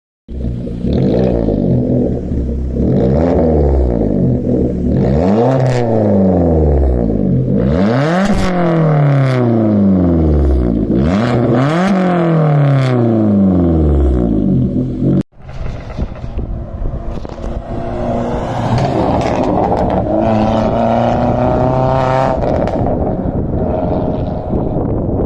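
MG3 four-cylinder petrol engine through a loud custom exhaust, revved again and again, its note rising and falling, with sharp crackles and pops as the revs drop. After a sudden break about 15 seconds in, it runs at a steadier note with smaller rises in pitch.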